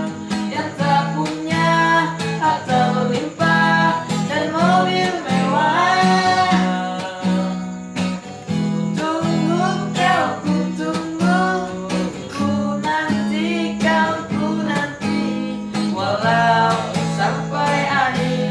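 Acoustic guitar strummed with a voice singing the melody over it.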